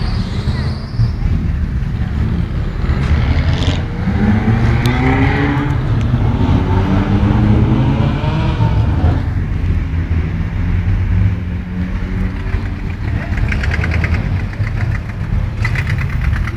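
Car engines rumbling, with one engine revving up in several rising sweeps in the middle, then settling back to a steady rumble.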